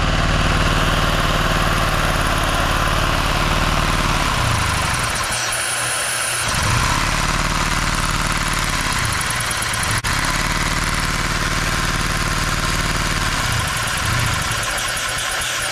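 LEGO inline two-cylinder vacuum engine running on suction from a vacuum hose: a steady whooshing hiss of drawn air over the clatter of the running engine. Its note sags and recovers three times as a hand brakes the tyre flywheel, which stops it very easily.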